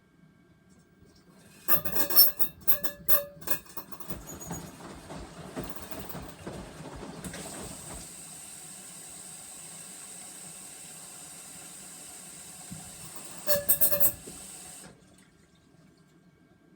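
Panasonic drum-type washing machine making an abnormal noise: a burst of sharp rattling knocks, then a steady hiss, with another brief rattle before it all cuts off suddenly.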